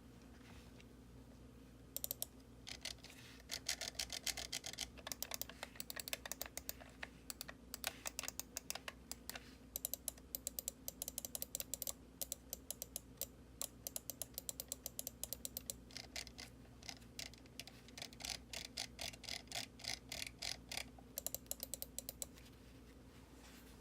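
BenQ ZOWIE S1/S2 Divina Special Edition gaming mouse buttons being clicked over and over, in rapid runs and slower single presses, starting about two seconds in and stopping shortly before the end.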